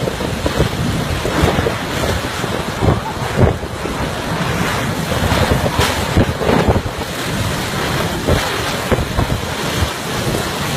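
Torrential rain and strong gusting wind of a storm squall: a dense, steady rush with irregular surges as gusts hit, and wind buffeting the microphone.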